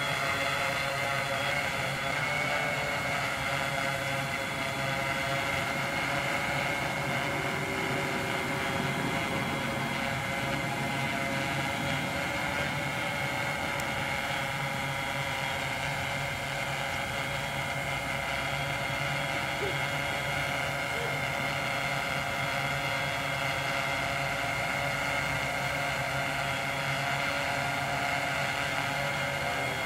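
Tarot FY680Pro hexacopter's six NTM 3536 910kv brushless motors and APC 12x3.8 propellers whirring steadily in a hover, a constant multi-tone whine.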